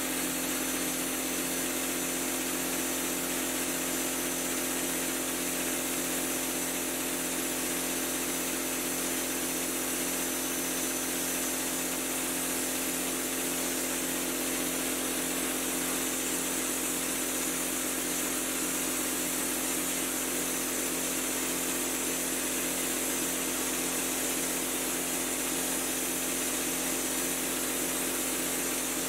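Drywall texture hopper gun spraying orange peel texture: a steady hiss of compressed air and mud, with a steady machine hum underneath.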